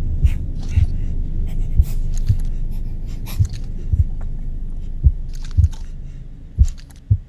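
Horror-film sound design: a low rumbling drone that fades away, under a slow heartbeat effect of paired low thumps about every second and a half. Scattered scratchy crackles sound over it.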